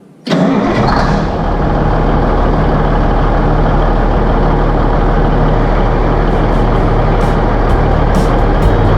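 A motor vehicle's engine running steadily with a low, even drone, starting suddenly just after the start.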